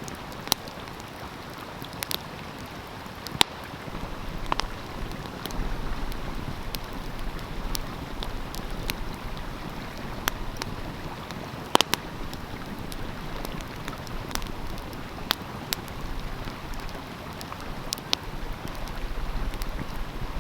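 Wood fire crackling with sharp, irregular pops over the steady rush of a flowing stream; one pop, a little past the middle, is louder than the rest.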